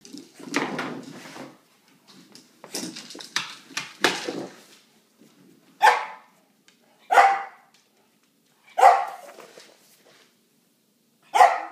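Dog barking: four sharp single barks spaced a second or two apart, after a few seconds of rougher, noisier sounds.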